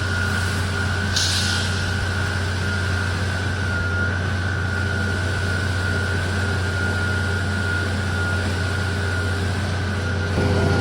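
Heavy diesel truck engine running steadily, a low drone with a constant high whine over it. A brief hiss comes about a second in.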